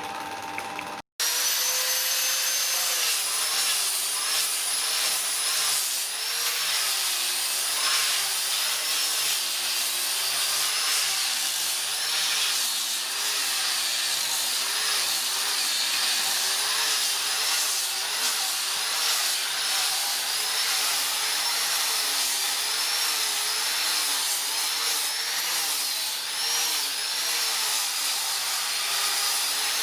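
Electric power tool running, a loud continuous whine whose pitch rises and falls over and over as the load on it changes while it works wood. It starts abruptly about a second in, after a brief cut to silence.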